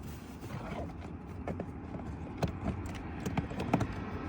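Irregular small clicks and light knocks, about half a dozen, the sharpest near the end, from handling a car key and programming gear in a car.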